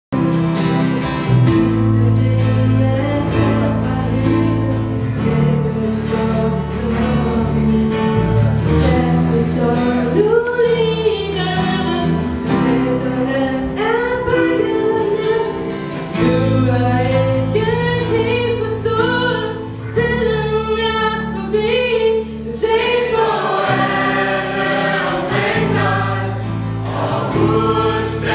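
A mixed group of adult voices singing a song together in unison, accompanied by a strummed acoustic guitar.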